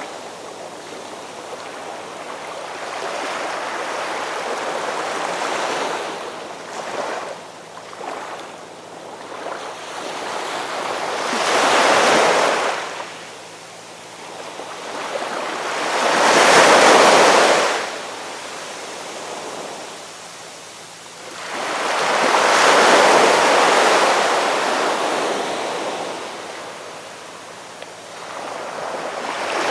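Ocean waves breaking on a beach, with a loud wash surging up and falling away about every five or six seconds over a constant rush of surf.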